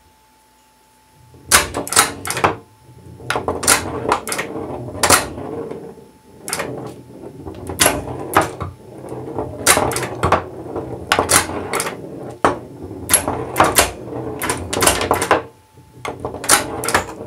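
Solenoid-driven flippers of a home-built pinball table clacking as they are fired again and again, with a steel ball rolling and knocking across the chipboard playfield in between. The clacks begin about a second and a half in and come several a second at times.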